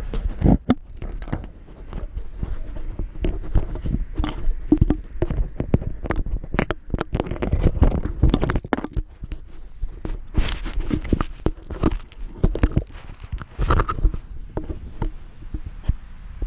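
Handling noise from fingers gripping and rubbing a hat-mounted action camera right at its microphone, freeing fishing line snagged on it: a dense, irregular run of knocks, scrapes and rustles with heavy low thumps.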